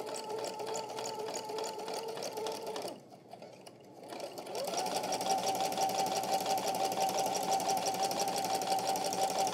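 Electric sewing machine stitching a seam: it runs steadily, stops for about a second and a half around three seconds in, then starts again and runs on at a higher, steady pitch.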